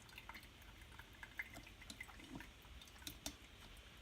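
Faint, irregular drips of coffee falling from a drip coffee machine's filter after the brew has been stopped partway.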